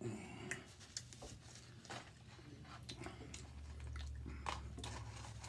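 A person chewing a mouthful of fast food, with irregular small wet clicks and smacks, close to the microphone. A faint low steady hum lies underneath.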